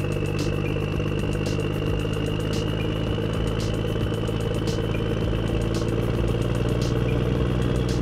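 Tractor engine running steadily under load as the tractor pushes snow with a front plough blade, with a thin high whine over it and faint ticks about once a second.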